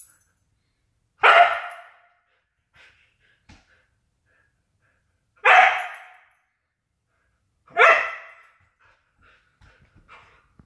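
Siberian husky barking three times, each bark short and clear, a few seconds apart.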